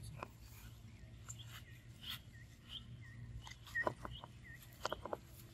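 A bird repeats a short chirp over and over, about once or twice a second. A few sharp clicks sound near the end, over a faint steady background hum.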